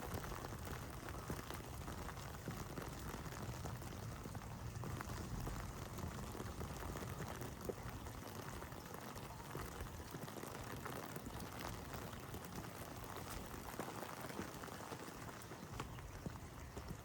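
Heavy rain falling steadily: a constant hiss dense with sharp patters of close raindrops hitting surfaces.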